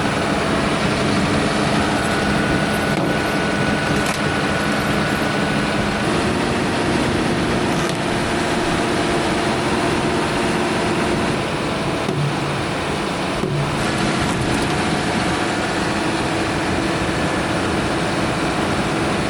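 Heavy machinery engine running steadily under a dense, noisy din, its pitch shifting a few times.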